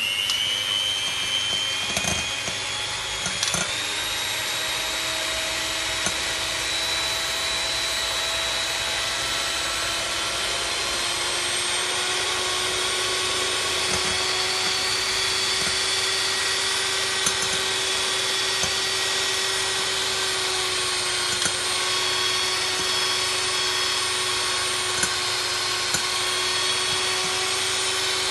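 Electric kitchen mixer switched on and running steadily while beating sponge-cake batter. Its whine rises in pitch over the first few seconds as the motor comes up to speed, then holds steady, with a few light knocks of the beaters.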